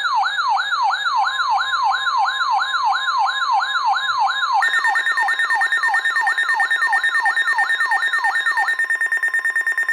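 Weather-alert attention signal: a siren-like warble sweeping up and down about three times a second over a steady tone near 1 kHz, the NOAA Weather Radio warning alarm tone. A second, higher steady tone joins about halfway through, and the warble stops near the end. It announces a severe thunderstorm warning.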